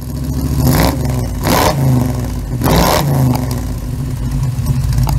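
An engine revving: three rev blips over a steady idle, each rising and falling in pitch, and the sound cuts off suddenly.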